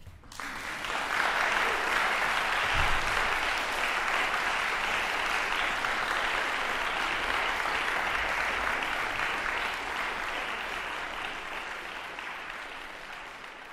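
Audience applauding at the end of a piano performance. The applause breaks out suddenly, holds steady, and tapers off near the end.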